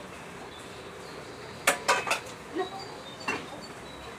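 Cutlery clinking against a plate during a meal: about five short clinks, three in a quick run around the middle and two more spaced out after.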